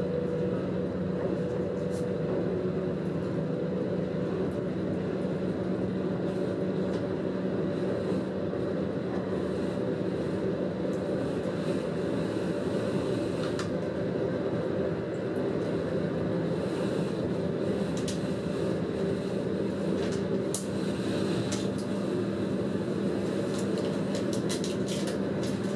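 Steady running drone of a diesel railcar heard from inside its driver's cab, a Siemens Desiro class 642: an even engine hum over rolling rumble, with a few light clicks and rattles in the second half.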